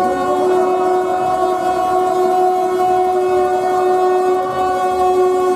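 A single long, steady horn-like tone held at one pitch, with faint regular low pulses beneath it.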